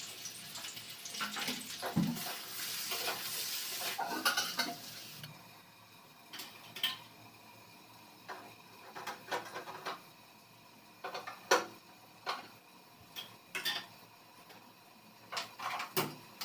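Metal cooking utensils clinking and knocking against pans, with a steady frying hiss in the first few seconds that cuts off suddenly about five seconds in; after that, separate clinks every second or two.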